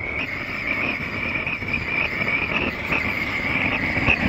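Two antique pressurised blowlamps burning with a steady hiss, one burning strongly while the other is floundering. A light knock near the end as the lamps are handled.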